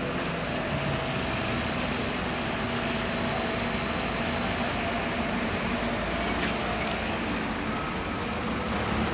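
Street traffic: motor vehicle engines running steadily with road noise.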